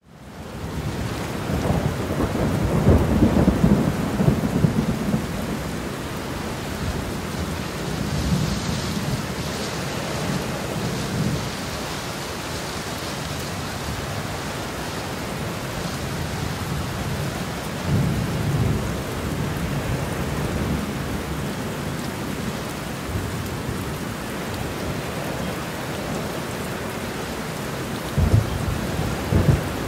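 Steady rain with several low rolls of thunder, the heaviest in the first few seconds and again near the end.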